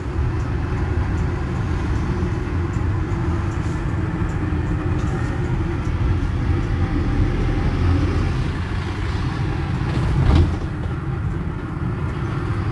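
Cabin noise inside a moving shuttle minibus: a steady low rumble of engine and road noise, with one sharp knock about ten seconds in.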